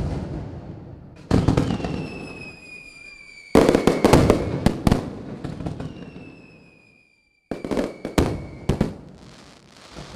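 Aerial fireworks exploding: three loud booming bursts about two seconds apart, each followed by a run of sharp crackling cracks that die away. Thin high whistles slide slowly down in pitch between the bursts.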